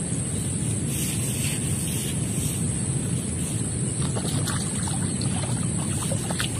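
Wind buffeting the microphone: a steady low rumble, over a thin, steady high-pitched hiss, with a few faint ticks from about four seconds in.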